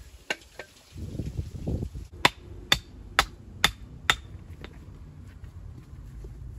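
A hammer striking stone five times in a steady rhythm, about two blows a second, each hit sharp and ringing, as a mason works stone for a wall. Before the blows comes a short low rumble.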